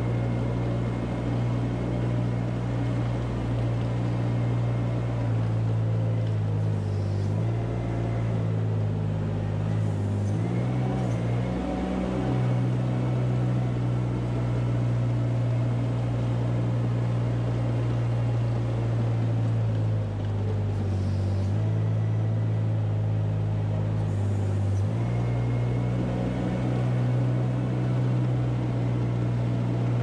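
A farm machine's engine running steadily, its pitch dropping and coming back up a few times as the revs change under changing load.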